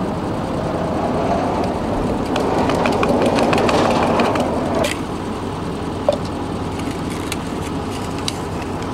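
Small plastic clicks as a geocache canister's cap is worked open by hand, with a sharp pop about five seconds in as it comes off, over a steady low rumble.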